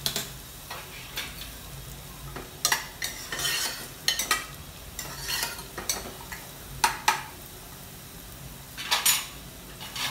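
Sliced onions frying in hot oil in a kadai with a soft, steady sizzle, broken by irregular clinks and scrapes of a utensil against a cooking pot, a dozen or so times.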